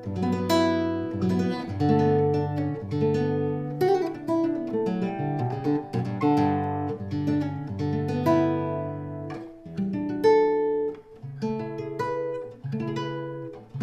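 Ramirez 2CWE nylon-string classical guitar being played: a sequence of strummed chords and plucked notes, each struck and left to ring.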